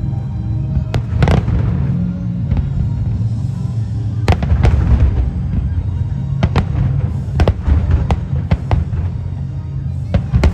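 Aerial fireworks bursting in quick succession: sharp cracks and booms, thickest about four seconds in and again past the middle, over a steady low rumble and music.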